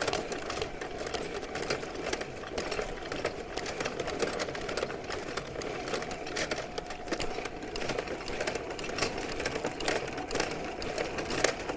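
Rented electric drain snake machine running, its motor whirring steadily with rapid, irregular clicking and rattling, feeding its cable down a clogged main sewer line.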